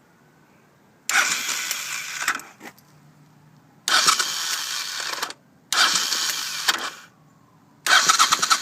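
Electric starter on a 1983 Honda VT500C V-twin motorcycle, pressed in four separate bursts of a second or so each. It spins with a loud whirring clatter and the engine does not catch, which the owner takes for a blown starter clutch.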